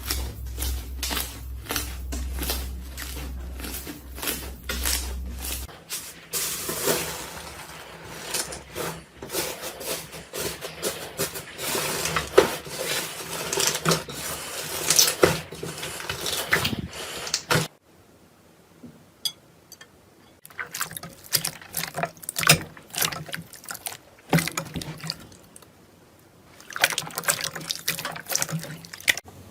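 Slime being squeezed and worked by hand: wet squelching full of quick sticky pops and clicks. There is a quieter stretch about two thirds of the way through with only a few sparse clicks.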